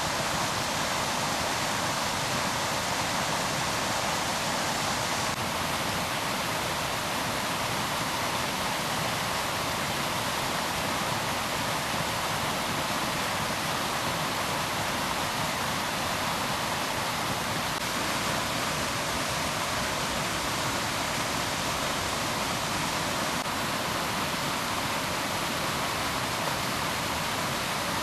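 Running water rushing steadily in an unbroken, even noise.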